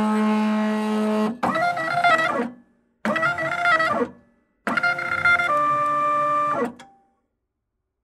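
Printer motors running: a steady pitched motor tone that stops about a second in, then three separate runs of pitched motor whine, each gliding in pitch as it starts and stops, with short pauses between.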